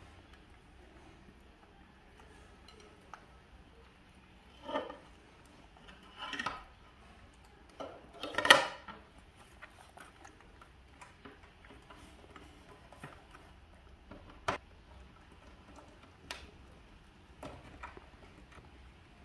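Scattered knocks and clatter of a plastic plate and fruit being handled on a slatted wooden tray by two pet monkeys, with the loudest knock about eight seconds in.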